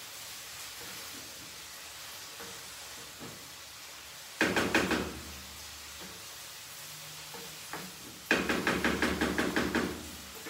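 Wooden spatula knocking rapidly against a frying pan while stirring, in two bursts: a short one about halfway through and a longer run of about a dozen quick knocks near the end. A faint steady sizzle of food frying in the pan underneath.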